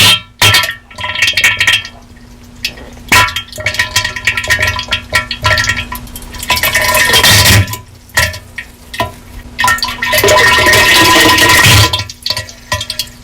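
A diarrhea sound effect, heavily distorted and clipping, in loud irregular bursts, the longest about ten seconds in, over a faint steady hum.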